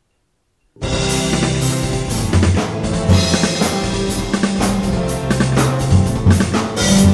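Music starts suddenly about a second in: a full drum kit, with bass drum, snare and cymbals, playing a rock beat along with a backing track that carries held bass notes.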